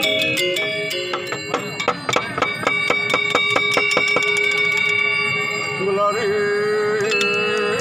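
Balinese gender wayang, bronze-keyed metallophones struck with mallets, playing a busy run of ringing notes. About six seconds in, a voice starts singing over the playing.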